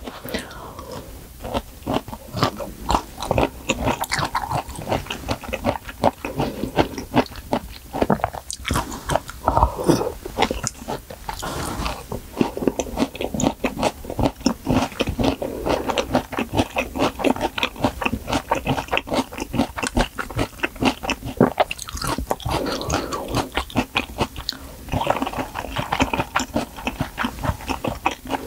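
Close-miked chewing of malatang, with many quick, wet mouth clicks from bite to bite.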